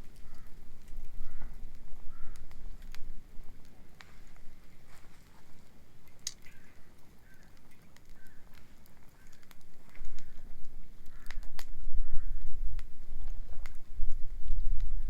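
Beach bonfire crackling, with sharp scattered pops of burning wood. A soft call repeats about once a second, and a low rumble grows louder about two-thirds of the way in.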